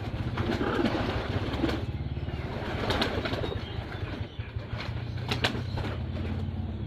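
Domestic pigeons cooing over a steady low hum, with a few sharp taps about three and five seconds in.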